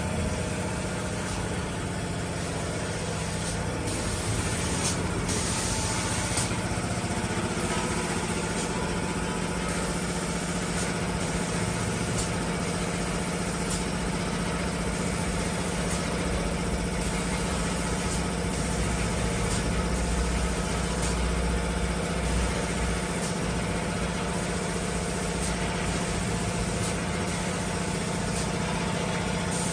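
Automatic spray painting machine for cabinet doors running: a steady mechanical hum with a broad hiss from the moving spray gun head and the booth's equipment.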